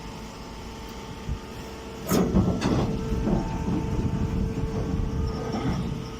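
Baling machine running with a steady hum. About two seconds in, a loud, irregular clattering and knocking starts and lasts about four seconds before easing off.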